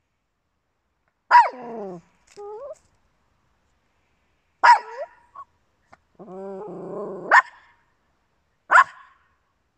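Small dog barking four times, sharp and spaced a few seconds apart, with a low drawn-out growl just before the third bark.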